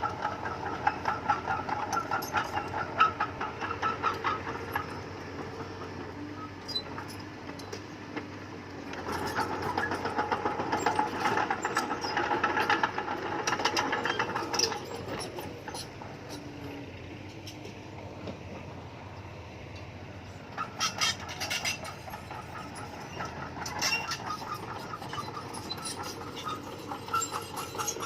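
Bulldozer diesel engine running under load with rapid metallic clatter, swelling louder about nine seconds in for several seconds, easing off, then picking up again near the end.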